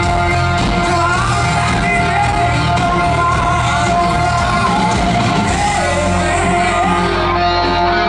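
Live hard rock band playing loud in a concert hall: electric guitars and keyboard over bass and drums, with a singer's voice over the top.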